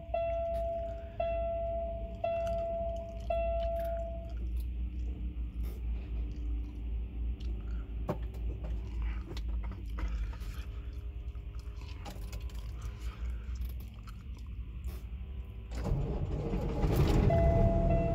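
Peterbilt 579's dash warning chime beeps about once a second with the ignition on, with the primary air pressure low. About 16 s in, the truck's diesel engine cranks and starts running, and the low-air warning tone sounds again, steady.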